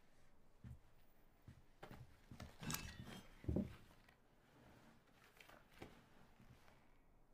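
Quiet room with faint movement sounds: a few soft low thumps like footsteps, and a short sharp sound with a bright high edge about three seconds in.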